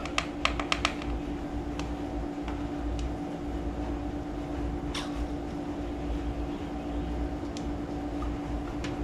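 Small metal clicks and taps as parts are handled on an automatic transmission case: a quick run of clicks in the first second, then single clicks now and then, the loudest about five seconds in. A steady hum runs underneath.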